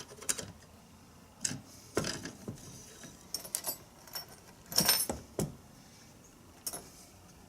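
Short metallic clicks and clinks, about seven spread irregularly with the loudest near the middle, as channel-lock pliers and a stuck, scuffed rod are worked against a collar in an animatronic's head mechanism.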